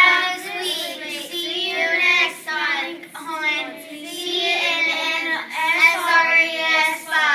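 Young girls singing a tune together, with held notes.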